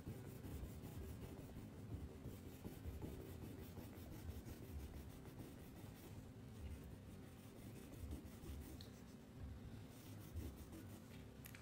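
Red crayon rubbing quickly back and forth on paper as an area is shaded in: a faint, steady scratching.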